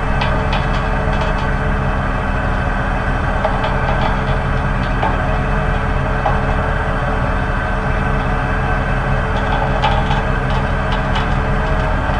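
Engine of the well-pulling rig running steadily while it hoists drop pipe out of the well, with a few faint clicks near the end.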